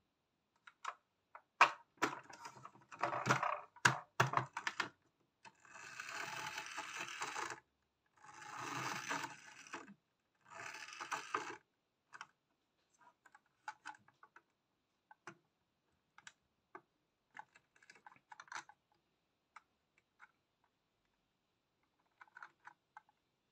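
Plastic toy bus handled on a hard tabletop: scattered plastic clicks and knocks, and in the middle three rushing stretches of a second or two each, as the bus is pushed along the table on its plastic wheels.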